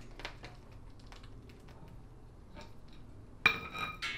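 A steel floor jack being let down under a vehicle's front suspension, with faint clicks and creaks. About three and a half seconds in comes a sharp metallic clank that rings briefly as the long steel jack handle is pulled from the jack.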